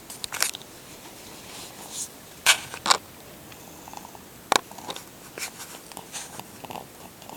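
A sleeping baby's short, snuffly snoring breaths through the nose, coming irregularly, with two sharp ones close together about two and a half seconds in.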